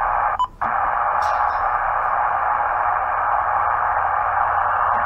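Uniden radio scanner's speaker giving a steady static hiss with no voice on it, cut by a brief click and dropout about half a second in.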